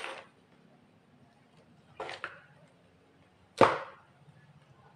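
Metal spoon working thick fish-meatball dough in a metal mixing bowl, knocking against the bowl: two quick knocks about two seconds in and a louder one about a second and a half later.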